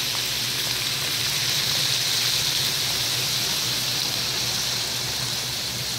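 Milk poured into a hot pan of frying meat, hissing and sizzling steadily as the liquid hits the pan. The hiss eases a little toward the end.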